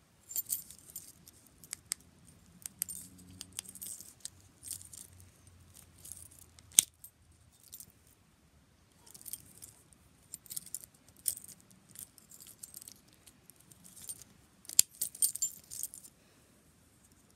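Keys on a metal split ring jangling in bursts as an Audi flip-key fob is turned in the hand. About seven seconds in, a single sharp click, the loudest sound, comes as the spring-loaded key blade snaps open.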